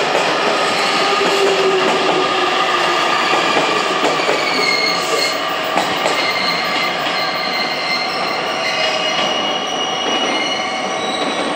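JR Kyushu 813 series electric train running past, its wheels squealing in several high, wavering tones over a steady rumble.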